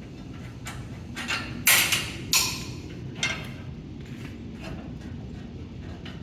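Metal parts of a grinder's hammer mill being handled: a run of clanks and scrapes, the loudest about two seconds in, then fewer and fainter knocks.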